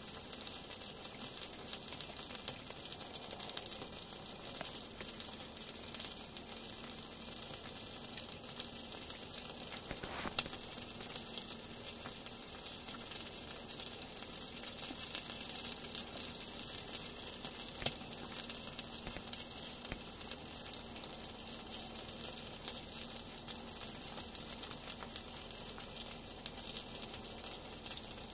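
Meat frying in a pan on a small wood-burning tent stove: a steady high sizzle with fine crackle. Two sharp clicks stand out, about ten and eighteen seconds in.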